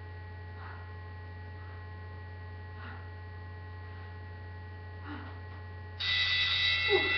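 Steady low electrical mains hum, with faint soft breaths every couple of seconds. About six seconds in, a much louder steady high-pitched ringing tone cuts in suddenly.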